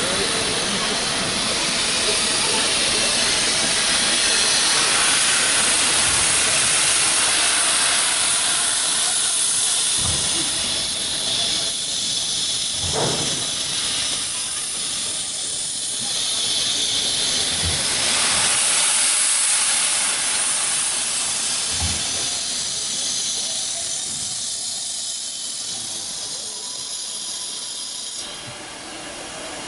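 Steam locomotive letting off steam: a strong, steady hiss that eases off partway through, builds again and then fades near the end, with a few short low thumps.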